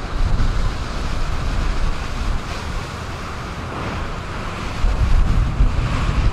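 Wind buffeting the microphone in heavy rumbling gusts, with the steady wash of breaking lake waves underneath. The gusts get stronger about five seconds in.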